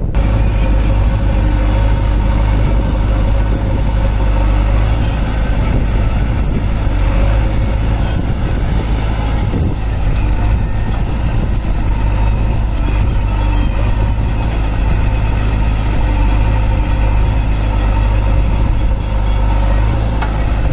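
Diesel engine of a JCB 3DX backhoe loader running steadily at a constant speed, a continuous loud drone with no revving.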